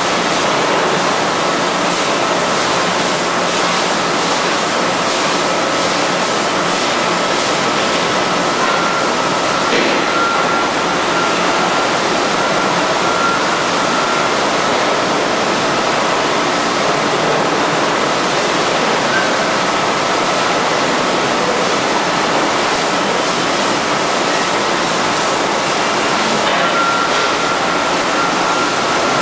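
Steady machinery noise of a 5-gallon water bottling line with a robotic bottle loader and unloader: an even rushing noise with a faint high whine running through it and scattered light clicks.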